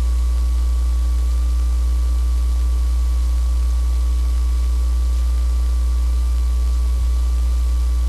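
Steady low electrical hum with an even hiss and a faint steady whine above it.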